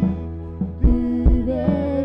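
Worship band music: held keyboard chords under sharp drum beats, with a singing voice entering about three quarters of the way through.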